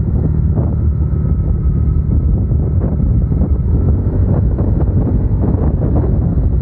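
Motorcycle riding along, with loud, steady wind buffeting on a helmet-mounted microphone over the engine's running and a faint steady whine.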